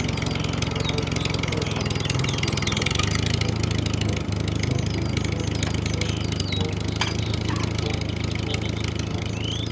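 Tractor engine idling steadily with an even, low chugging pulse.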